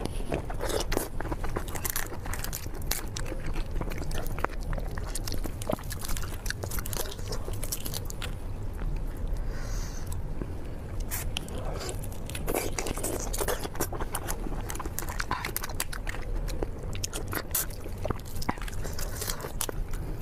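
Close-miked eating of large prawns: shells cracking and being peeled off by hand, with biting, chewing and wet mouth noises. Many small irregular crackles and clicks throughout.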